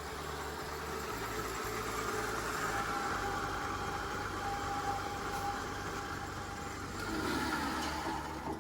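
Small rice milling machine running steadily with a constant whine, freshly repaired with a replacement inner part.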